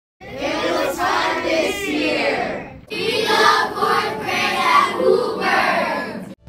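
A group of children singing together in two phrases, with a short break near the middle.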